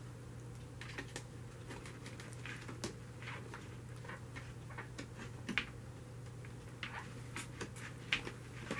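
Irregular light clicks and taps of metal shower curtain rings and wire being clipped through the holes of a plastic bin, a few sharper knocks near the middle and end, over a steady low hum.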